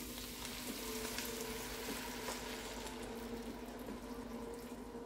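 Shredded chicken sizzling in butter in an enamelled cast-iron Dutch oven as chicken broth is poured in, a steady sizzle with small crackles. The hiss thins toward the end as the broth cools the pan.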